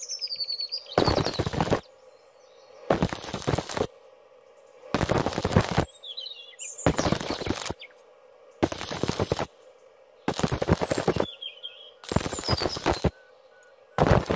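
Stick (electrode) welding arc on thin steel tube, crackling in short bursts of under a second about every two seconds, eight in all. The arc is struck and broken again and again so the thin metal does not burn through. Birds chirp in the gaps.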